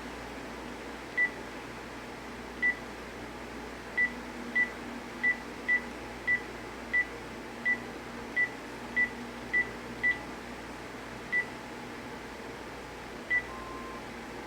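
Cordless phone key-press beeps: about fifteen short, high beeps at an uneven pace as buttons are pressed through the answering-machine menu to delete the recorded greeting, then one short lower tone near the end.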